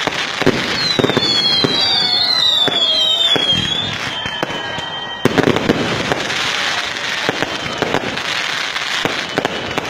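Fireworks going off: a dense run of bangs and crackles. About a second in, a high, wavering whistle rises and falls several times for a few seconds.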